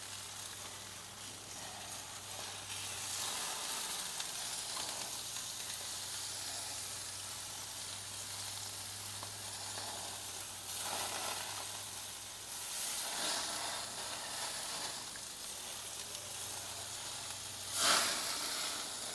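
Chicken wings sizzling steadily on a grill, freshly covered with melted butter, with a brief louder burst about a second before the end.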